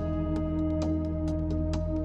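Calm background music: held, sustained chords with light, evenly spaced percussive notes over them.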